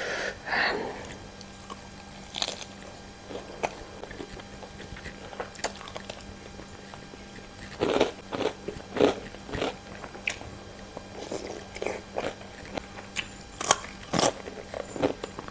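A woman chewing and biting a lettuce-leaf wrap of rice and fried jengkol close to a clip-on microphone: soft mouth sounds with sharp crunches, bunched into clusters about halfway through and again near the end.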